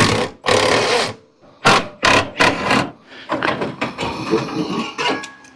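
Short bursts of a cordless power tool spinning out the half-inch bolts that hold a radiator, with sharp knocks of metal in between.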